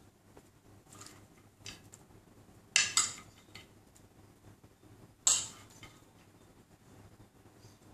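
Metal spoon clinking and scraping against a bowl and a cooking pot while fried celery and walnuts are spooned onto rice. There are light taps, two sharp clinks close together about three seconds in, and another sharp clink about five seconds in.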